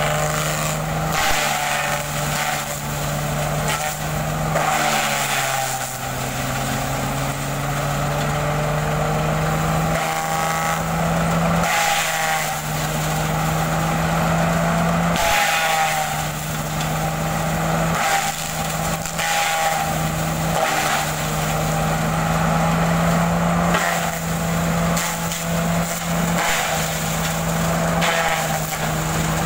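Tractor-driven shredder cum pulverizer running steadily as coconut fronds are fed in, with crackling as the fronds are chopped. The machine's note sags about five seconds in under the load of the fronds and comes back up a few seconds later.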